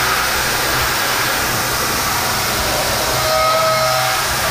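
Haas VF5SS CNC mill running a 1/2-inch 5-flute chipbreaker end mill through 1018 steel on an adaptive clearing roughing pass: a loud, steady cutting noise, with a pitched whine joining about three seconds in.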